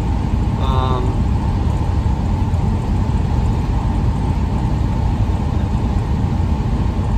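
Steady low road and engine rumble inside a moving van's cabin while driving, with a brief pitched sound under a second in.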